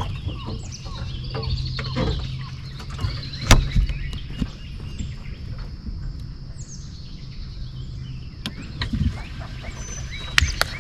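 Wild birds chirping and calling, with a steady low hum that fades out near the end and a few sharp knocks, the loudest about three and a half seconds in.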